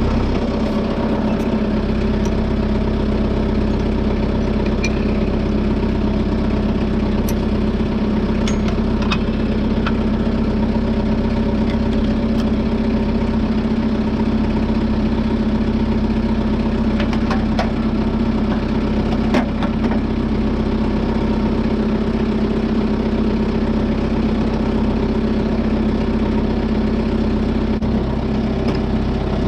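Kubota tractor's diesel engine idling steadily, with a few short metallic clicks and clanks as the front attachment frame is worked on.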